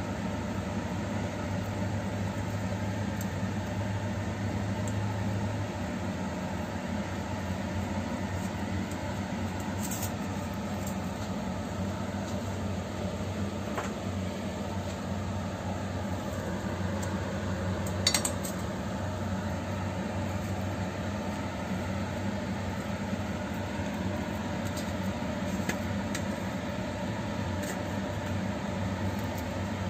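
Steady low mechanical hum of a kitchen appliance or fan. Brief light clinks come about ten and eighteen seconds in, as a wooden spoon presses pork filling into a slit eggplant in a stainless steel bowl.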